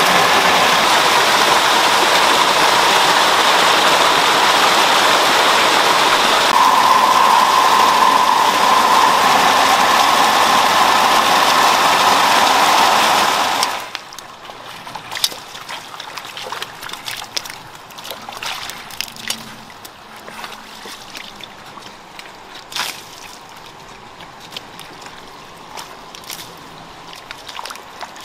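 Water gushing from a pipe outlet into a concrete holding tank, a loud, steady rush. It cuts off about halfway through and gives way to quieter wading sounds in shallow water over mud and pebbles, with scattered small splashes and clicks.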